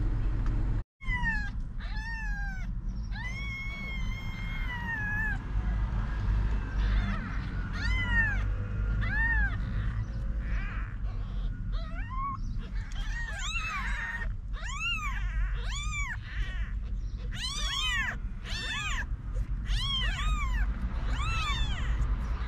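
Very young kittens mewing: thin, high calls, first a few drawn-out ones, then many short rising-and-falling mews from several kittens, coming thicker and overlapping in the second half.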